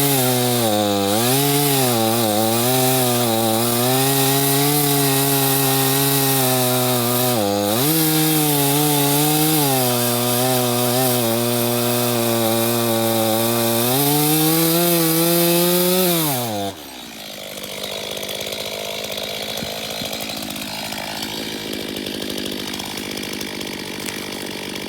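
Stihl MS 251 two-stroke chainsaw running at high revs and cutting wood, its pitch dipping and recovering again and again as the chain bogs under load. About 17 seconds in the revs fall away and it drops back to a quieter, steady running sound.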